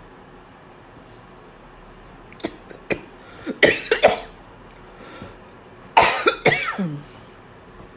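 A person coughing in two bouts, the first about three and a half seconds in and the second about six seconds in, ending with a falling voiced sound.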